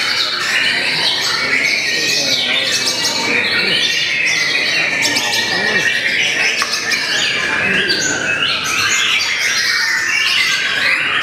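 White-rumped shamas (murai batu) singing continuously: loud, varied whistles, trills and quick rising and falling phrases overlapping from more than one bird at once.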